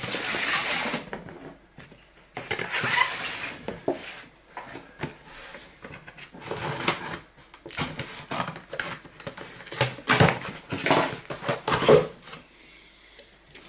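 A cardboard box being cut open and handled: scissors slicing through the packing tape, cardboard flaps scraping and rustling, with irregular knocks and clicks, and a plastic syrup bottle lifted out near the end.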